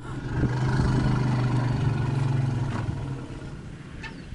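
African elephant rumble: a long, low, steady call that swells in over the first half second, holds for about three seconds, then fades away.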